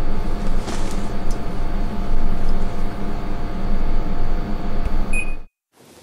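A noisy room air conditioner running: a loud, steady whir over a low hum with a thin steady whine. There is a short beep just after five seconds, and then it cuts off suddenly.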